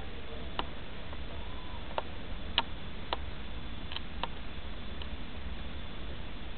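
Small fire of paper and dry pine needles catching and burning, giving scattered sharp crackles, about eight over five seconds, over a steady hiss.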